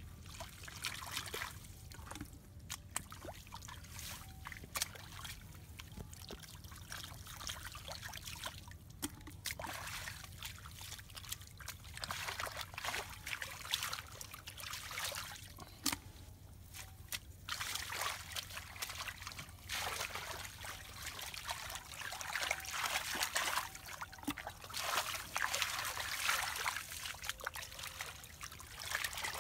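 Water splashing and dripping into a metal basin as lemongrass stalks are shaken and rinsed by hand, in irregular bursts with small handling knocks.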